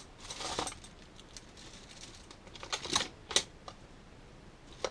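Small parts being handled and searched through on a workbench: a brief rustle, then a few light clicks and clinks, like small metal hardware being picked up and set down.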